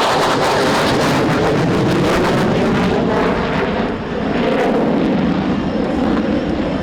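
Loud, steady jet noise from the F-22 Raptor's two Pratt & Whitney F119 turbofans in flight, with a brief dip about four seconds in.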